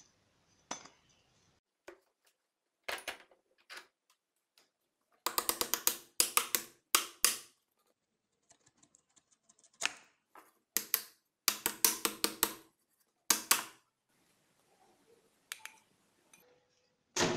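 Rusty steel axe head and the split pieces of its old wooden handle being knocked and worked out of the eye by hand: irregular bursts of rapid rattling clicks and knocks, with quiet gaps between.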